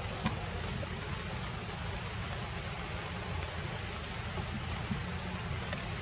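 Steady rushing outdoor background noise with a low rumble underneath, like running water or light rain, and one faint tick shortly after the start.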